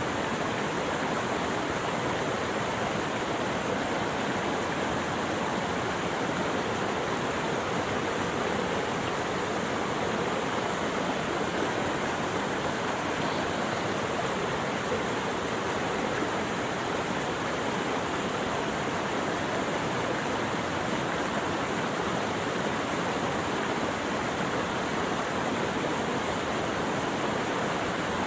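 Steady rushing water, an even, unbroken wash of noise.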